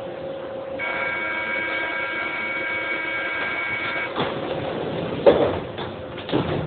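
Paris Métro train's door-closing warning buzzer sounding for about three seconds as a steady high multi-tone note, then cutting off, followed by the sliding doors shutting with a loud thud about five seconds in and further knocks near the end. A steady hum from the stationary train runs underneath.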